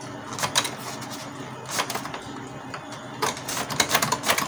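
Tissue paper rubbing and rustling against a roller inside an opened Canon MP287 inkjet printer, with irregular small clicks and ticks from the printer's mechanism as the part is wiped by hand. The clicks come in clusters and are busiest near the end.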